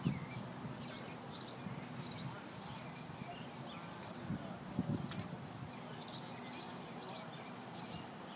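A songbird giving short, high chirps about two a second, falling silent for a few seconds midway before starting again, over a low outdoor rumble with a couple of soft thumps.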